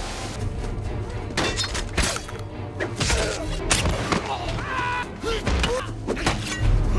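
Action-film soundtrack: music over a steady low drone, broken by several sharp impacts and short bursts of voices.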